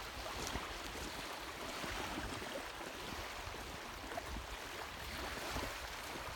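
Steady hiss of small waves washing onto a pebbly shore, with light wind.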